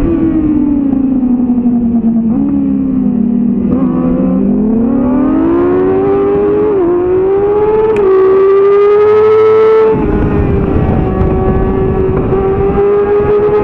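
2007 Yamaha R6's inline-four engine heard onboard at race pace, with wind rushing over the microphone. The revs fall through the first few seconds as the bike slows into a curve, then climb with two quick dips in pitch as it shifts up, and hold high to the end.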